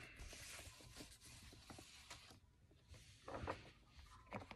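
Faint rustling of paper as a photo is slid out of a paper envelope and handled, with a couple of short, slightly louder rustles near the end.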